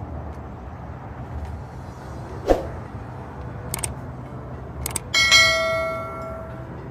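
Subscribe-button animation sound effect: a few short clicks, then a bright bell chime about five seconds in that rings out and fades over a second or so, over a steady low background hum.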